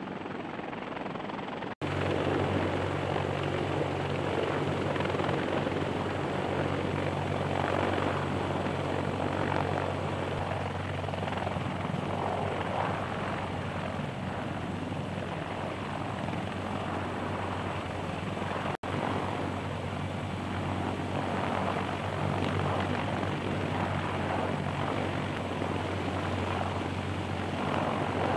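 A CH-53E Super Stallion heavy-lift helicopter hovering low with an external sling load, its engines and rotor downwash making a steady loud rushing noise over a low steady drone. The sound cuts out for an instant twice, about two seconds in and again a little past halfway.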